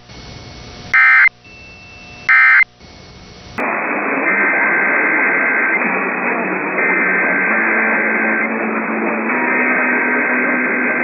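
The last two of three short, loud bursts of EAS digital data tones, the end-of-message code that closes an alert, over radio hiss. About three and a half seconds in, the sound cuts abruptly to a noisy, muffled radio broadcast with faint steady tones.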